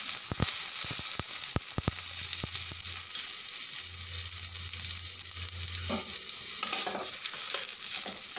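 Whole tomatoes sizzling in hot oil in a steel kadai: a steady sizzle with frequent sharp pops, thickest in the first few seconds.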